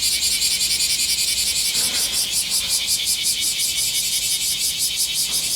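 Bear cicadas (kumazemi, Cryptotympana facialis) singing loudly: a rapid pulsing buzz of about eight or nine pulses a second, without a break.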